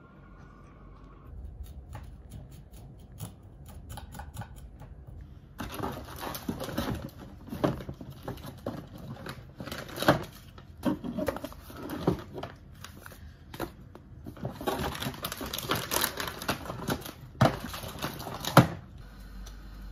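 Hands rummaging in a woven bamboo storage box: light clicks at first, then rustling of paper packets such as a bag of loose-leaf tea, with sharp knocks as items are taken out and set down, the loudest near the end.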